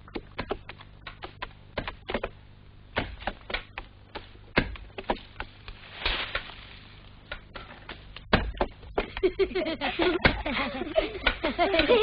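A series of irregular clicks and knocks, several a second, with a short rustle about six seconds in. Voices start faintly near the end.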